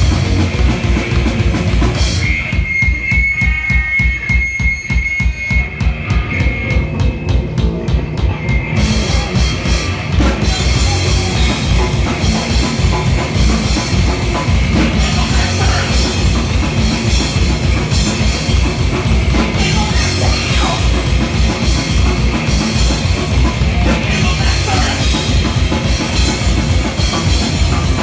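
Live heavy metal band playing: rapid drumming with bass drum hits, bass and distorted electric guitars. A couple of seconds in the band thins out to drums with a single high note held for a few seconds, then the full band comes back in.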